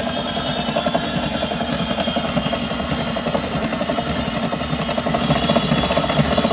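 Electric stand mixer running steadily, its motor and beater whipping eggs and brown sugar in a steel bowl, getting a little louder about five seconds in.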